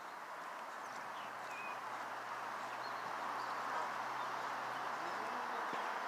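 Outdoor ambience by a pond: a steady rushing noise that grows slowly louder, with a faint low hum through most of it and a few faint short bird chirps.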